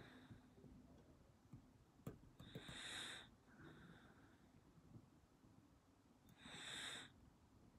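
Near silence, broken by two soft breaths out through the nose close to the microphone, about two and a half seconds in and again about six seconds in.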